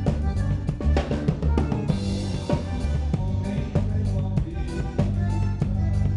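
Band music with a drum kit keeping a steady beat of bass drum and snare over sustained bass notes, with no singing.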